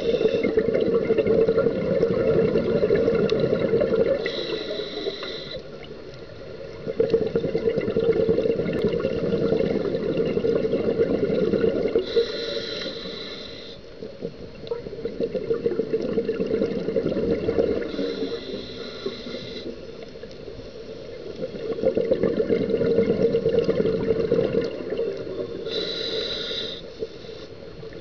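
Scuba diver breathing through a regulator underwater. Long bubbling exhalations alternate with shorter, higher hissing inhalations, about four breaths in a slow, even rhythm.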